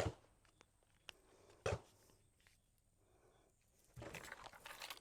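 IWI Tavor 7 rifle being reloaded, with sharp handling clicks: one at the start and another about a second and a half later. Faint rustling follows near the end.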